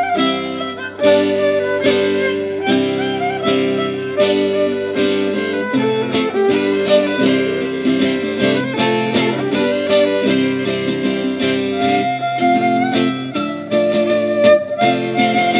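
A violin and a lute playing together live, the lute plucking a steady, quick rhythm under the violin's melody.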